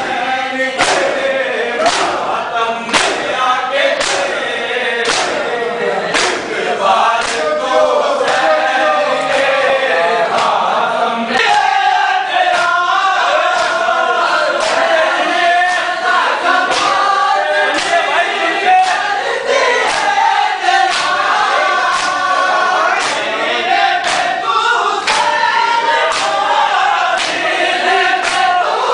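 A crowd of men chanting a noha together while striking their chests in matam, the hand slaps landing in a steady beat of roughly two a second. The chanting grows fuller about halfway through.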